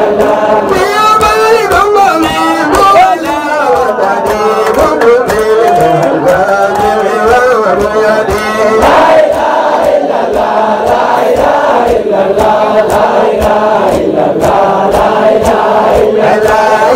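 A man singing a devotional chant through a microphone in long, ornamented lines that rise and fall, with other voices joining in and a steady beat underneath.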